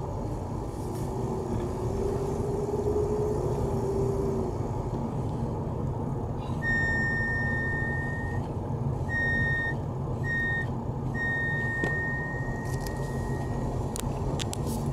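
BMW E46 with the engine running and a high whistle from the brake booster that comes and goes, heard in four stretches of a second or two each in the second half; this abnormal noise points to a fault in the booster. A few sharp clicks near the end.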